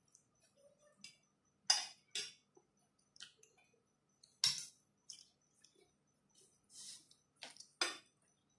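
Forks clinking and scraping against stainless-steel bowls, with slurps of instant noodles, as a handful of short separate sounds, the loudest about halfway through.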